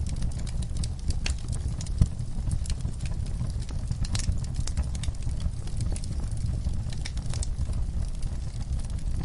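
Log fire burning in a fireplace, with a steady low rumble of flames and frequent crackles and pops as the wood burns. A sharper pop comes about two seconds in.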